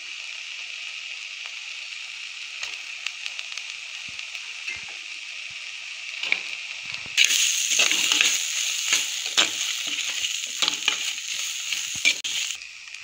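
Onions, tomato, dried red chillies and coconut pieces sizzling in oil in a terracotta pot, with a metal slotted spatula scraping and knocking against the clay as it stirs. The sizzling and scraping grow louder about seven seconds in and ease off near the end.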